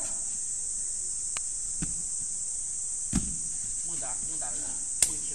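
Steady high-pitched chorus of insects buzzing in the trees. Over it come a few short knocks, a heavier low thump about three seconds in and a sharp click near the end.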